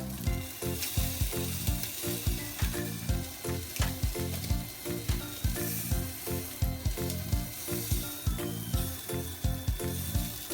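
Food sizzling as it fries in a hot pan, over background music with a steady beat.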